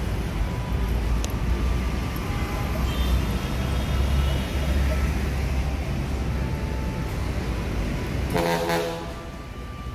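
Steady low rumble of nearby road traffic, with faint passing tones over it. Near the end comes a brief pitched sound, after which the rumble drops a little.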